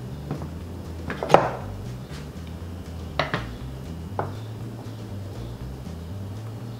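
Plastic bowl of a small food processor being handled on a stone counter: a few light plastic knocks and clicks as the motor top comes off and the bowl is moved and turned, the loudest about a second in, others around three and four seconds.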